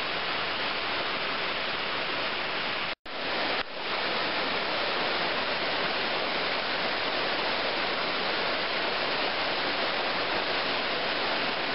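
Waterfall pouring into a pool, a steady even rush of falling water. About three seconds in the sound drops out for an instant and then comes straight back.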